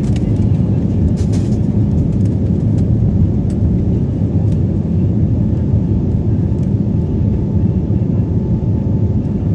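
Cabin noise of a jet airliner on its take-off roll: a loud, steady, low rumble of the engines and the aircraft rolling along the runway, with a few light rattles about a second in.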